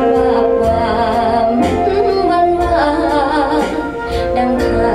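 A woman singing a Thai song with a wide, wavering vibrato over instrumental backing with a steady bass, played back through hi-end loudspeakers in a listening room.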